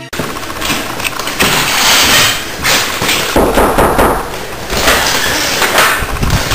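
Handling noise of a handheld camera being carried: a continuous rustle broken by many knocks and thuds, with the clatter of a door being pushed open by hand about halfway through.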